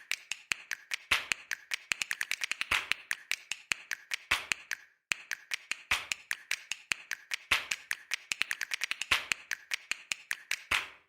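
A rapid, irregular series of sharp clicks or taps, several a second, with a brief pause about five seconds in.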